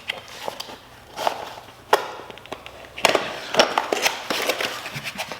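New motorcycle drum brake shoes and springs being unpacked: rustling packaging with a run of sharp clicks and knocks as the parts are handled.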